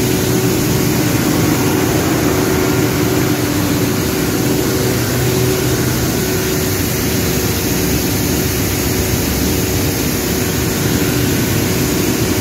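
CompAir L132RS rotary screw air compressor running: a loud, steady machine noise with an even low hum that does not change.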